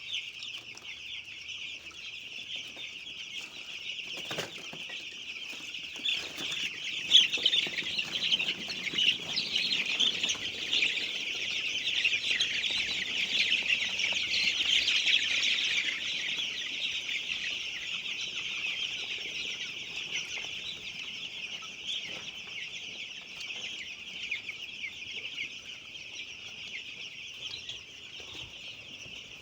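A large flock of chickens in a poultry house calling all at once, a dense, continuous chatter of many overlapping calls that grows louder in the middle and eases off later. A single knock sounds about four seconds in.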